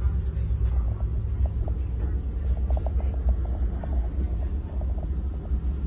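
Low, steady rumble of a moving passenger train heard inside the car, with faint light rattling ticks from about a second and a half in to past four seconds.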